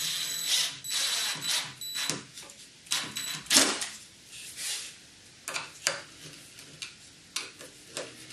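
Cordless DeWalt impact driver driving small screws through a plastic roller-blind bracket into a wooden slat, in several short runs with a thin motor whine. Near the end come a few sharp clicks and knocks as the parts are handled.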